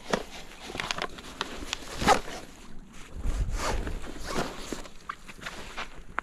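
Rustling and scraping of a black fabric bag being handled and packed, with scattered clicks and knocks, then footsteps on gravel and stone.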